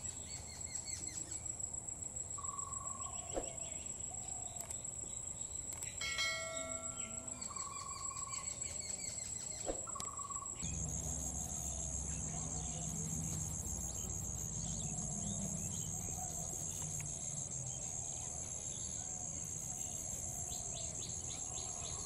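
Steady high-pitched trilling of crickets or similar insects, with a few short bird call notes in the first half. About halfway through, a low background rumble joins and the trill shifts slightly in pitch.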